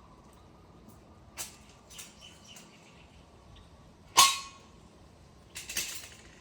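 Metal knocks and clanks of a car jack and steel jack stands being handled and set down. The loudest is a single ringing clang about four seconds in, with a few lighter knocks before it and a short cluster near the end.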